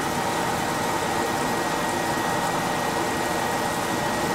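Steady mechanical hum with a faint high whine, unchanging throughout.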